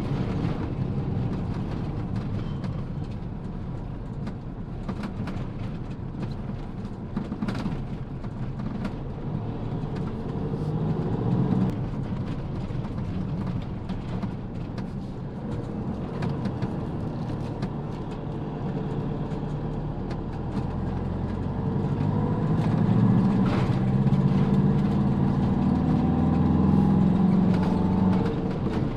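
Motorhome engine and road noise heard from inside the cab while driving, a steady hum that grows louder for several seconds near the end.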